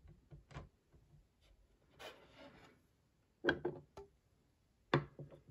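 Hard plastic graded-card slabs being handled on a wooden stand: light clicks, a scraping rub about two seconds in, then sharp clacks as a slab is lifted off and another set down, near the middle and near the end.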